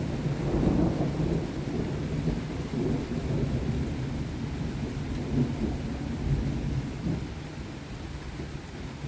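A long roll of thunder, rumbling over several seconds and slowly easing off, with rain falling.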